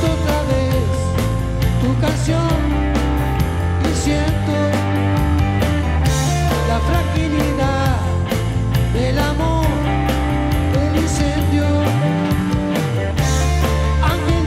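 Live rock band playing on stage: drum kit, bass, electric guitars and keyboards at full volume with a steady beat.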